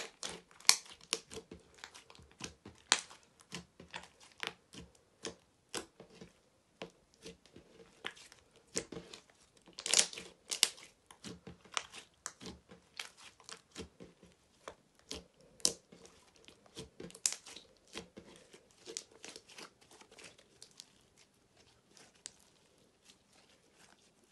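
Clear slime tinted red being kneaded and squeezed by hand, making a dense, irregular run of sticky clicks and pops, with a louder cluster of pops about ten seconds in.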